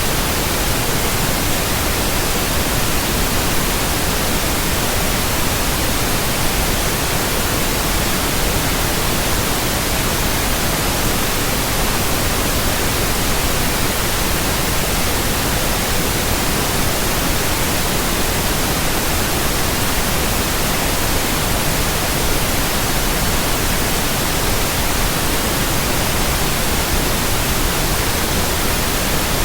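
Steady, unbroken white noise: an even hiss spread across all pitches, from deep to very high, without any change in level.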